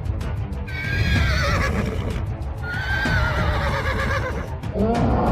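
Horse whinnying twice, each call wavering and falling in pitch, over background music with a steady low beat.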